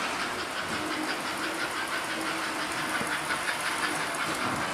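S-gauge model train running on its track: a steady, fast clicking rattle of metal wheels over the rails.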